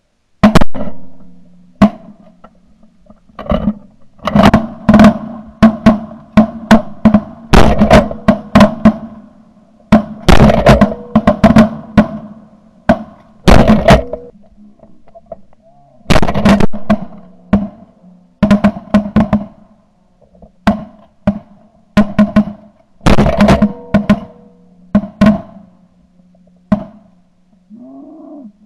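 Shotgun blasts fired at flying ducks and geese, dozens of sharp reports through the span, many in quick strings of two or three shots.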